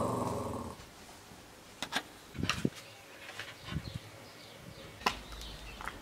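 A small long-haired dog's growl trails off in the first second. Then come scattered sharp clicks and taps, with faint bird chirps in the background.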